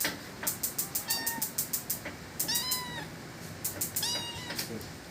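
A cat meowing three times in short calls, over a run of sharp rapid clicks at about five a second.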